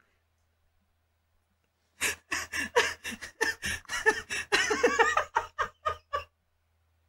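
A man laughing hard in a quick run of ha-ha bursts, starting about two seconds in and lasting about four seconds.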